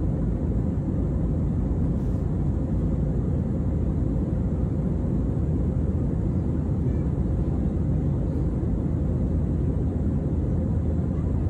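Steady low rumble of an airliner's jet engines and rushing air, heard inside the passenger cabin during the climb after takeoff.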